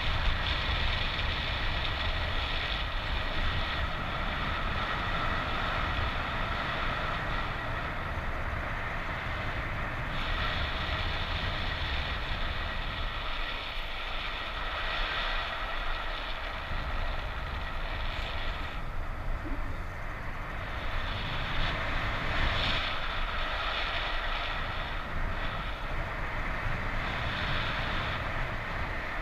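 Strong wind rushing over the microphone of a paraglider in flight: a steady low rumble with a hiss that swells and eases.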